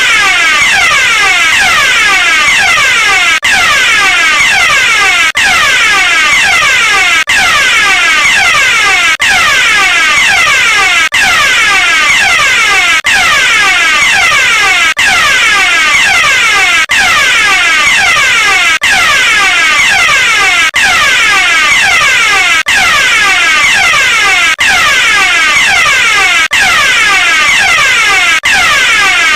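Fire alarm sounding continuously and loudly, a fast repeating sweeping electronic tone, with a brief dropout about every two seconds.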